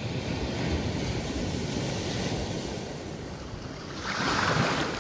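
Small waves breaking and washing up on a sandy beach, with wind rumbling on the microphone. One wave surges louder about four seconds in.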